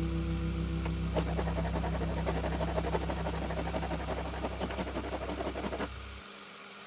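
Quick, rapid scraping strokes of hand sanding on a small wooden slingshot frame. The tail of background guitar music fades out about a second in, and a low steady hum cuts off about six seconds in.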